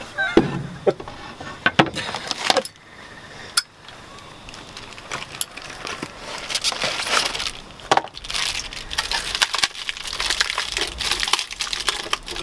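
Sharp knocks and clicks of gear and charcoal lumps being handled at a portable charcoal grill, then, from about six seconds in, a dense crinkling rustle of packaging being opened and worked in the hands.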